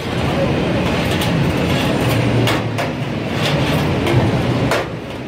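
Kitchen noise at a charcoal kebab grill: a steady rumbling hiss with a few sharp metallic clicks from the metal skewers being handled.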